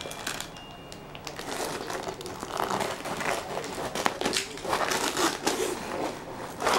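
A woven straw mat rustling and crinkling as a cat scrabbles and pounces at it and a hand shifts it about, in irregular scratchy rustles that get busier from about two seconds in.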